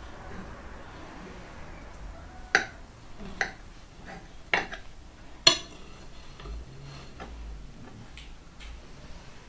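Metal knife and fork clinking against ceramic plates while a slice of cake is cut and lifted onto a plate. There are four sharp clinks about two to five and a half seconds in, and the last is the loudest, with a short ring.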